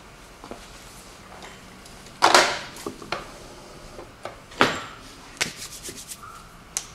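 Handling noises from a person moving about on a rolling shop stool: two loud rustles about two and four and a half seconds in, then a quick run of light clicks and taps near the end.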